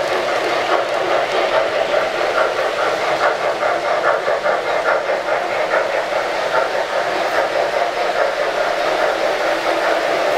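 Model O-gauge trains rolling steadily around a layout, their wheels rumbling on the track, with a quick, even chuffing through the middle as the smoking Norfolk & Western J-class steam locomotive passes.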